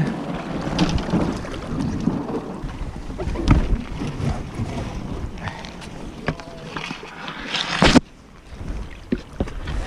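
A loaded canoe being pushed off a gravel shore and boarded, then paddled away: irregular knocks and bumps against the hull, with wind on the microphone. The sound drops away suddenly about eight seconds in.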